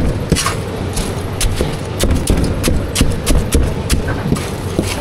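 Street food stall cooking noise: quick, irregular clicks and taps, several a second, over a steady low rumble.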